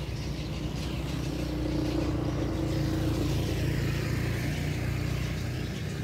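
An engine running steadily, its drone swelling a little toward the middle.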